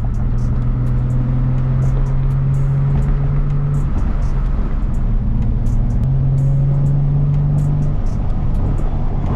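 Music with a deep bass line holding long notes that shift every few seconds, over the steady low rumble of a car on the move.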